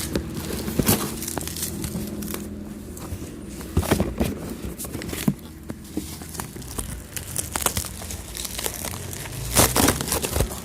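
Cardboard and plastic packaging being handled and torn open: crinkling and tearing with irregular sharp clicks and knocks, the loudest near the end. A low hum fades out in the first couple of seconds.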